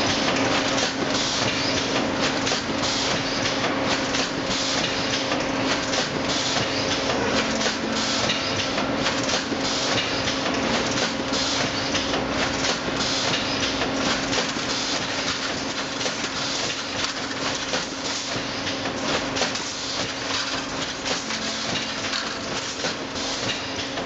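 Ideal GA 400 1600 automatic cable tray welding line running, a continuous rapid mechanical clatter of many small knocks with a steady hum underneath.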